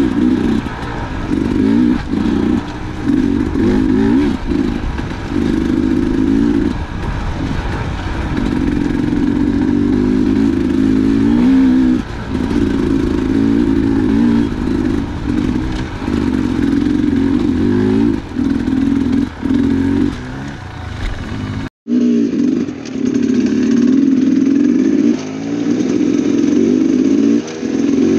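Dirt bike engine heard from on the bike, its revs rising and falling in repeated surges with the throttle. The sound drops out for an instant about three-quarters of the way through, then the engine carries on.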